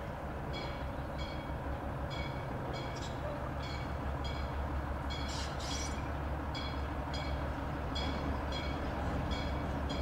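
Colas Class 56 diesel-electric locomotive standing and idling: a steady low engine rumble. A short hiss comes about five seconds in, and a repeated high two-note chirping runs over the rumble.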